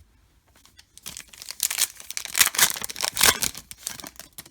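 A trading-card pack wrapper being torn open and crinkled by hand: a dense crackling rustle that starts about a second in and stops just before the end.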